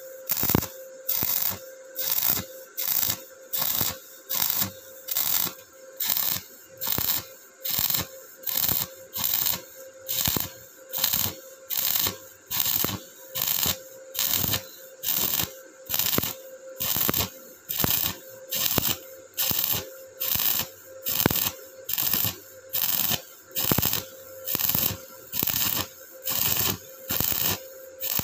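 Stick-welding arc from an Ingco 130 A inverter welder set at 120 A, burning a 2 mm electrode on a steel plate: crackling and sputtering in regular pulses, roughly one and a half a second, over a steady hum. The arc is running very stable.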